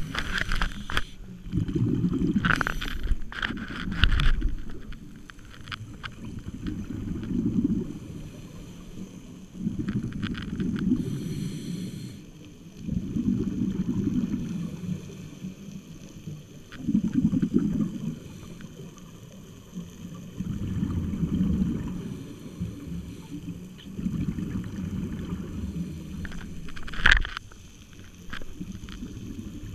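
A scuba diver breathing through a regulator underwater, heard through the camera housing: a muffled, low rumble of exhaled bubbles that swells and fades in regular bursts every three to four seconds. A few sharp knocks come through, the clearest near the end.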